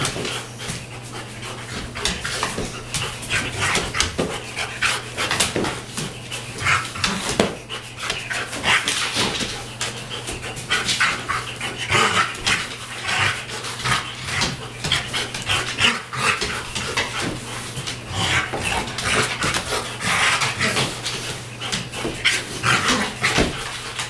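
Old English Sheepdog panting hard in quick, rapid breaths while play-wrestling, with rustling and scuffling as it tussles on a dog bed.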